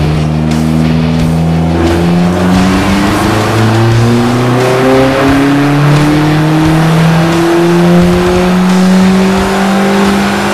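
Dodge SRT-4's turbocharged 2.4-litre four-cylinder engine at full throttle on a chassis dyno, revs climbing steadily through a power pull from about 3,500 to about 6,000 rpm.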